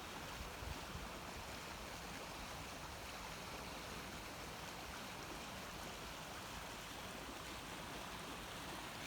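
A river gushing: a steady, even rush of fast-flowing water.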